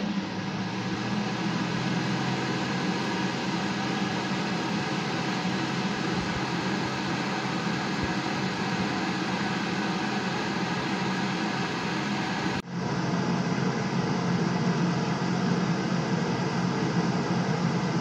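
Homemade bucket vacuum cleaner running: its small exhaust-fan motor hums steadily with a rush of air as the hose sucks up sawdust. There is a brief break in the sound about two-thirds of the way through.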